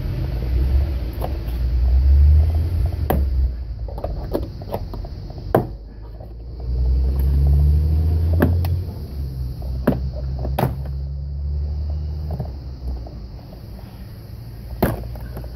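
Sharp clicks and knocks of hands working the lower edge of a Honda CR-V's plastic door trim panel, about seven in all, over a loud, uneven low rumble.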